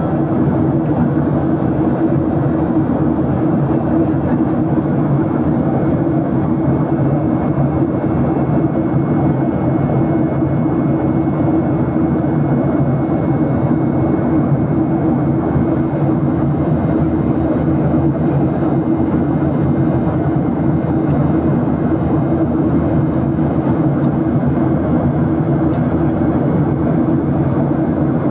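Steady, unchanging drone of an airplane's engines, with a low hum under an even rushing noise.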